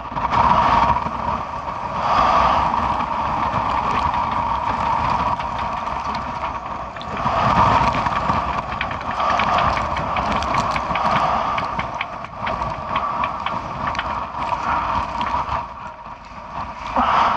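Gale-force wind buffeting the microphone in gusts, with a mid-pitched drone that swells and fades, and a stretch of fast light clicking about halfway through.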